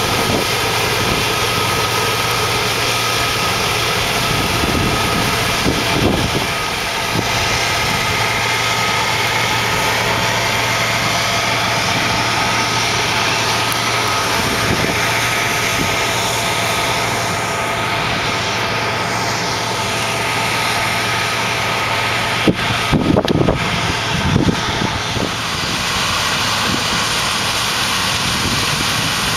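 Combine harvester running steadily while harvesting soybeans, heard from inside the cab: a continuous engine and machinery drone with several steady tones. A few sharp knocks and bumps come about 23 seconds in.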